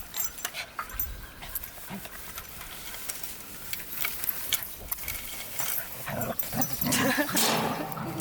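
A dog making vocal sounds, loudest from about six seconds in, among scattered light clicks.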